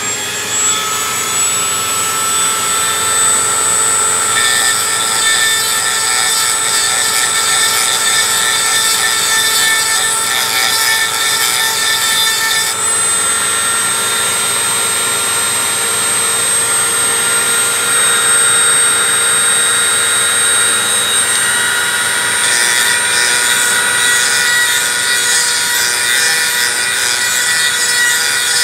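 Dremel rotary tool running at high speed with a steady whine, its small grinding stone grinding a small steel part held in locking pliers. The scratchy grinding comes in from about 4 to 13 seconds in and again from about 22 seconds on; in between the tool runs free.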